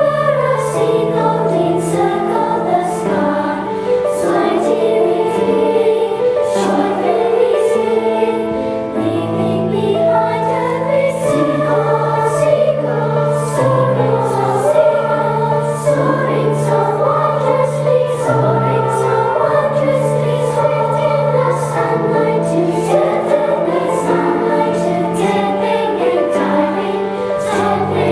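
Children's choir of fourth-graders singing a song in unison.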